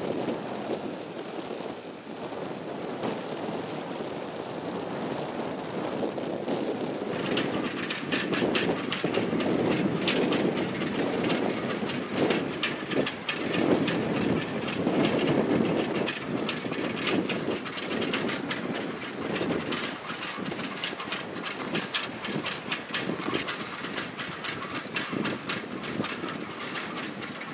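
Wind buffeting the microphone while riding a bicycle along a road, a rough, fluctuating rumble. From about seven seconds in, a dense, rapid ticking and rattling starts suddenly and keeps going.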